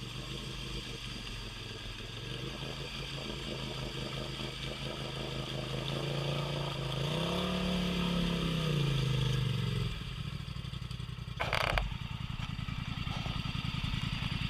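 Polaris Sportsman 1000 Highlifter ATV's engine running, revving up to a higher pitch around the middle and falling back off about ten seconds in. A short, sharp pop follows a moment later, taken to be the right front axle breaking.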